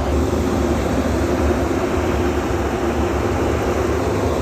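Heavy farm machinery running: a steady engine drone with a low rumble and a hum, unchanging throughout.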